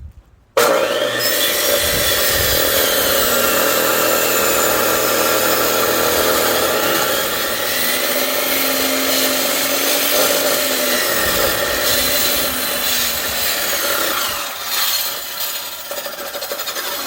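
Electric cutting saw with a circular blade, running and cutting through a firewood log: a loud, steady sawing whine that starts abruptly about half a second in and eases off near the end.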